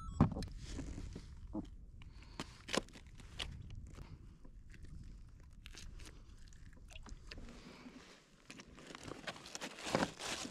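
Handling noises on a kayak deck: scattered short clicks and knocks as a freshly caught fish and fishing gear are handled, over a low steady rumble, with a louder burst of rustling near the end.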